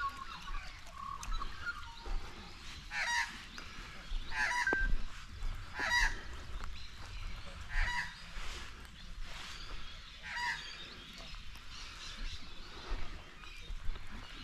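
Geese honking: about five short honks spaced a couple of seconds apart.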